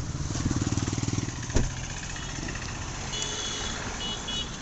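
Kia Seltos 1.5-litre four-cylinder diesel idling steadily, heard from outside the car, with a sharp thump about a second and a half in as a car door shuts.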